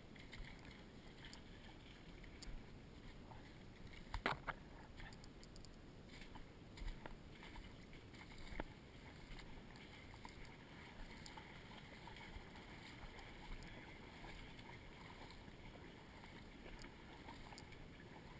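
Faint water sloshing from wading in waders through shallow swamp water, with a few scattered knocks, the loudest about four seconds in.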